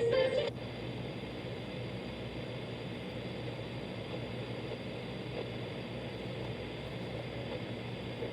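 Alarm clock radio's small speaker hissing with steady FM static, tuned off a station. A burst of station music cuts off about half a second in.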